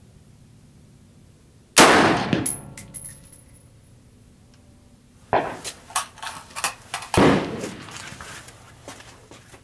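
A 5.56 AR-15 with a 16-inch bull barrel and muzzle brake fires one shot about two seconds in, the loudest sound, with a ringing tail. A few seconds later come a run of sharper cracks and clicks and then another loud report.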